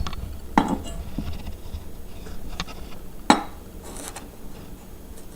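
Kitchenware being handled: a few scattered clinks and knocks of a knife and dishes, with two louder knocks about half a second in and just after three seconds.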